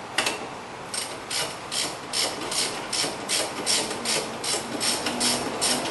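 Ratchet wrench clicking in quick, even strokes, about three a second, as it runs down the 18 mm caliper mounting-bracket bolts on a disc brake. A single sharp metal click comes right at the start.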